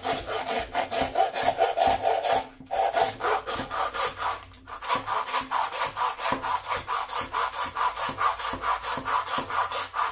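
Hand meat saw cutting through a venison backbone, quick even back-and-forth strokes of the blade rasping on bone, with two brief pauses. After the second pause, about halfway through, the rasp rises in pitch.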